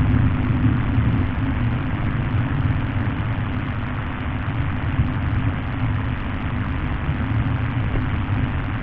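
A steady low droning hum with a rushing hiss above it, unchanging throughout, presented as an anomalous 'humbuzz' picked up on the ocean floor.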